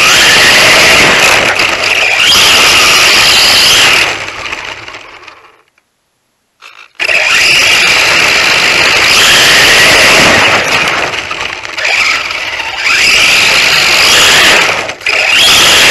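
Turnigy RC stadium truck's motor and gears whining, with tyre noise over coarse tarmac, the whine rising in pitch several times. About four seconds in the sound fades away to silence, then starts again suddenly near the seven-second mark.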